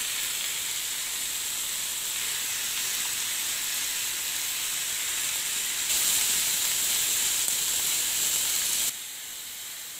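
Raw chicken pieces, chopped tomato and onion sizzling in hot ghee in a frying pan, a steady hiss. The sizzle grows louder about six seconds in and drops back abruptly about three seconds later.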